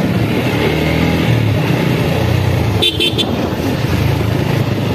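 TVS Apache motorcycle engine running steadily while riding, with a brief horn toot of a few quick beeps about three seconds in.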